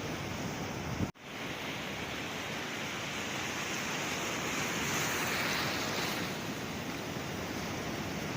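Sea waves washing on the shore in a steady hiss, with one wave swelling and breaking from about four to six seconds in. About a second in there is a brief click and a split-second dropout, like a splice in the recording.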